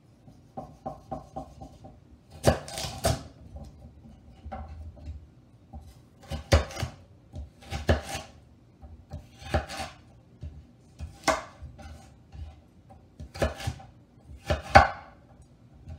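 A chef's knife cutting through a raw carrot and knocking on a wooden cutting board. There are about ten sharp knocks, one every second or two and some in quick pairs, with a run of lighter ticks about a second in.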